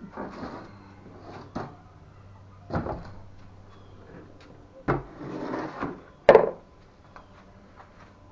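Handling noises of hard objects: scattered knocks and clunks, a scraping slide about five seconds in, and the loudest knock just after, like a drawer or case being opened and shut.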